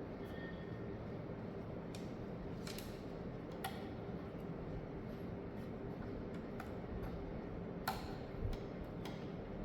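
Irregular light clicks and ticks, about ten of them, over a steady background hum; the sharpest click comes near the end.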